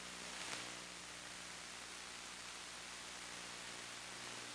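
Steady static hiss with a low electrical hum, the empty audio channel of an analog FPV video link recorded on a DVR; one brief louder crackle about half a second in.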